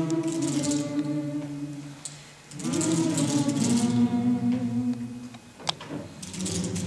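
A group of voices singing held chords together a cappella, with a short break about two and a half seconds in. A single sharp click sounds near the end.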